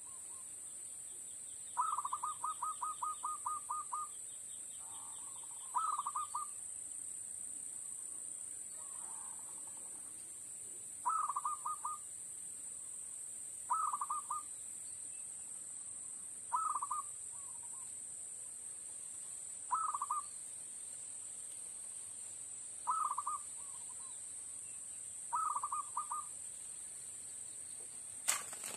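Zebra dove (perkutut) calls: short bursts of quick cooing notes, repeated every two to three seconds, with one longer run of notes about two seconds in. A steady high hiss runs underneath.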